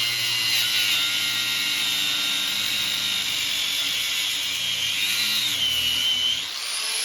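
Angle grinder with a cutting wheel cutting through steel brackets, a steady high whine under load. Its pitch dips about five seconds in, then briefly falls away and winds back up near the end.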